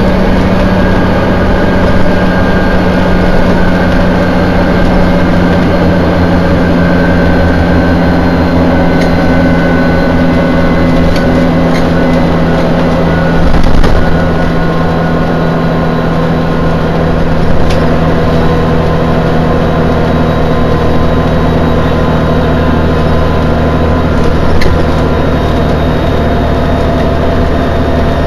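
Dennis Dragon bus with its Cummins LTA10 diesel engine running steadily at cruising speed, heard from inside the passenger deck, with low road rumble. A few brief knocks, the loudest about halfway through.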